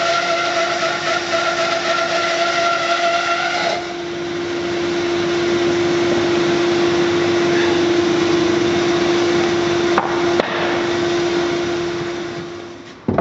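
Hammer N4400 bandsaw running with a steady hum while its blade resaws a walnut log lengthwise. A higher sawing note drops away about four seconds in, two short knocks follow about ten seconds in, and the sound fades out near the end.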